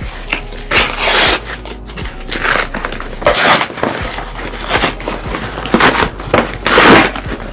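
Brown shipping packaging being torn open by hand: a series of rough ripping and crinkling bursts, the loudest near the end.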